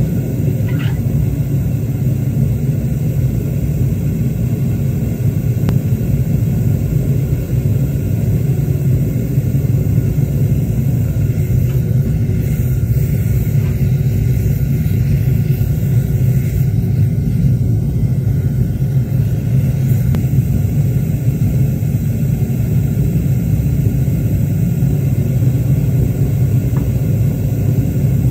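Gas-fired foundry furnace running at full burn: the burner gives a steady, deep rushing noise while heating a crucible of copper.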